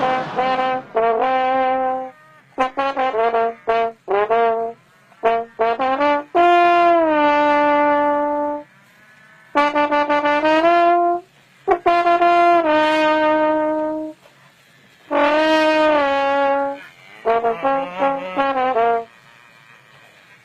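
A solo trombone plays a slow melody of held notes in short phrases, with brief pauses between the phrases.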